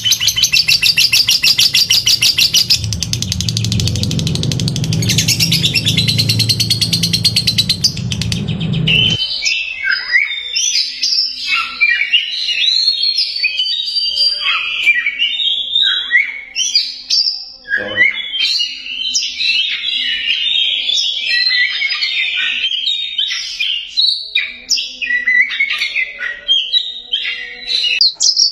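Caged songbird singing a fast, rapidly repeated trill over a low background rumble. About nine seconds in, this changes abruptly to a different bird's varied song of quick whistles and chirps, with a single click near the middle.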